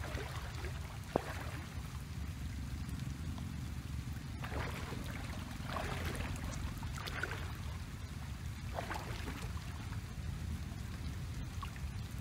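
Water running along a muddy irrigation ditch, over a steady low rumble, with a few soft rustles and one sharp click about a second in.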